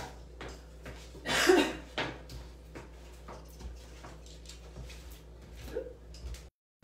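A person and a dog moving about on a wooden floor: scattered light taps and clicks, with one short loud noise about a second and a half in.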